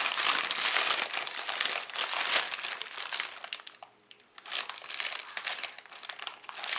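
Foil crisp bag (Lorenz Crunchips) crinkling loudly as it is handled and pulled open at the top. There is a short lull about three to four seconds in, then more crinkling.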